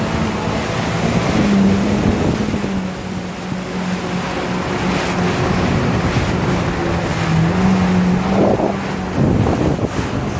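Motorboat engine running at speed, its hum shifting slightly in pitch, under the rush of water along the hull and wind on the microphone; a splash of water near the end.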